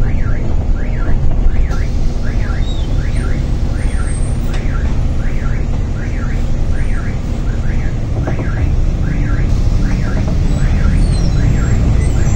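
Inside a Higer B80KL city bus on the move: steady engine and road rumble with a noise of rain and spray. Over it, an electronic warning chirp repeats about three times every two seconds, each chirp rising and falling in pitch.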